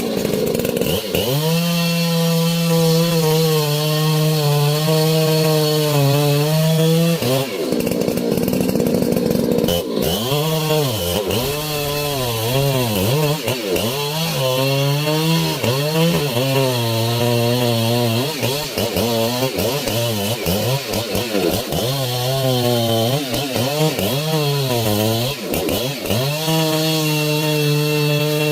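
Petrol chainsaw cutting into a tree. Its engine runs steadily at first, then its pitch dips and rises again and again as the chain bogs in the wood and recovers, before it steadies at high revs near the end.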